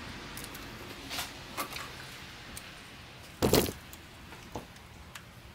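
Faint clicks and scrapes of a gloved hand twisting and pulling an old VANOS solenoid to work it out of its bore on a BMW E90 engine, with one louder, brief scrape about three and a half seconds in.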